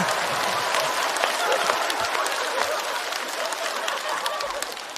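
Studio audience applauding and laughing after a punchline, the clapping fading away over the few seconds.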